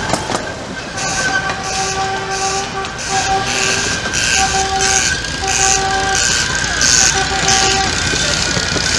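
Miniature amusement-park train ride running, with a steady chuffing beat about two a second and a pitched toot sounding on and off several times at one steady pitch from about a second in.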